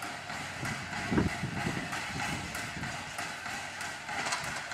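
Steam locomotive standing at a station platform: a steady hiss with irregular low rumbling, and one heavy thump about a second in.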